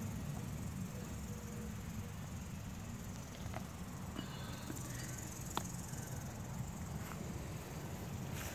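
Crickets chirring steadily, with a low rumble and a few faint clicks.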